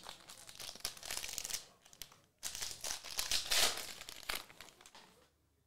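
Foil trading-card pack wrapper crinkling and tearing as it is ripped open by hand. The crackle comes in two spells, with a brief pause a little past two seconds in, and the second spell is louder.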